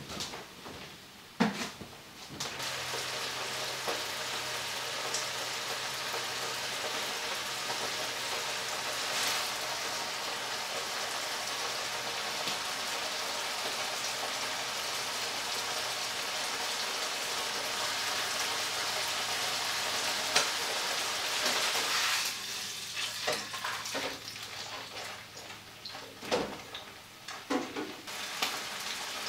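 Beef chuck roast searing in hot oil in a nonstick skillet: a steady frying sizzle that sets in about two seconds in. Near the end the sizzle drops and a few light knocks come through.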